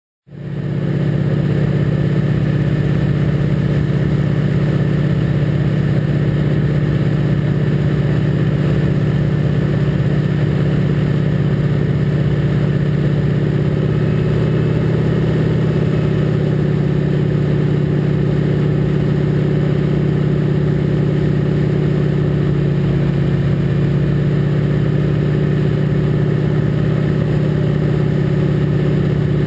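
North American Harvard II's Pratt & Whitney R-1340 Wasp radial engine and propeller droning steadily in flight, heard from inside the cockpit. The sound fades in within the first second, then holds a steady low pitch.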